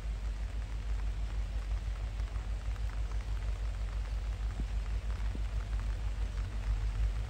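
Steady hiss of light rain with faint scattered drip ticks, over a constant deep rumble.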